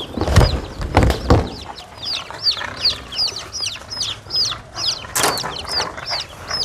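Young poultry chicks in a wire cage peeping: a steady run of short, falling, high chirps, two or three a second. A few knocks of the cage being handled come in the first second and again about five seconds in.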